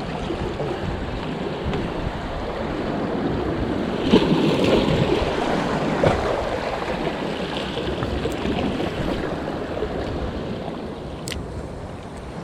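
Choppy sea washing against a rocky shore, a steady rushing wash that swells about four seconds in and again near six seconds, with wind rumbling on the microphone.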